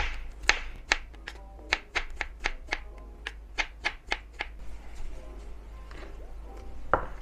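Kitchen knife slicing a banana on a bamboo cutting board: a quick run of sharp knocks of the blade against the board, about three or four a second, stopping about four and a half seconds in, then a single knock near the end. Soft background music underneath.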